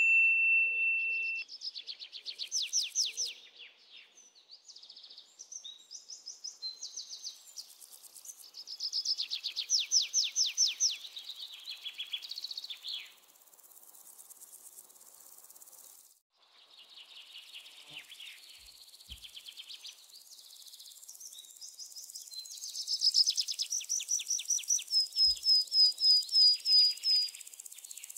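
Birds trilling and chirping in rapid high runs over a steady chirring of crickets, with a brief break about halfway through. It opens on the fading tail of a single high ding, the chime of a subscribe-button pop-up.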